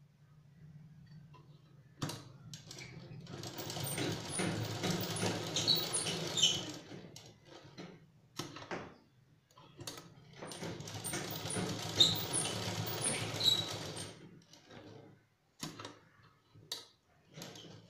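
Domestic straight-stitch sewing machine running, stitching fabric in two runs of about five seconds each. A few short clicks and knocks come between and after the runs.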